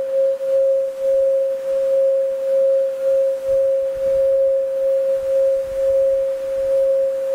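Frosted quartz crystal singing bowl sung by rubbing a wand around its rim, giving one steady, pure ringing tone that wobbles in loudness about twice a second.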